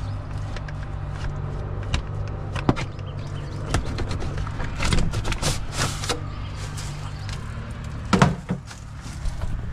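Screwdriver clicks and scrapes as a louvered plastic vent cover is unscrewed and pulled off the siding, with a burst of scraping around the middle and a sharp knock near the end. A steady low hum runs underneath.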